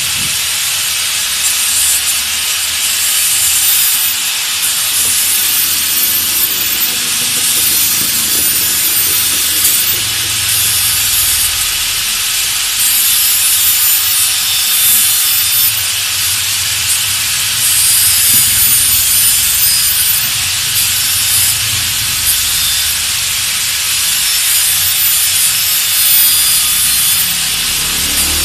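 A steady, loud hiss running without a break, with no rhythm or knocks in it.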